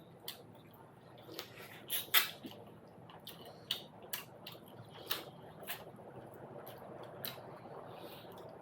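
Close-miked eating sounds of someone eating momos: irregular wet chewing clicks and lip smacks, the loudest about two seconds in.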